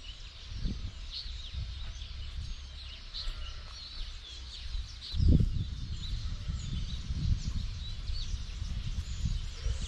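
Common mynas (Indian mynas) calling, many short chirps and whistles, over a low rumble of footsteps and camera handling with a thump about five seconds in.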